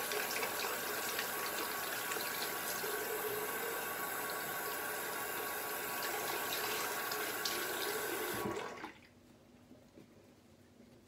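Bathroom sink tap running, with water splashing as a face is rinsed by hand. The tap is shut off about eight and a half seconds in.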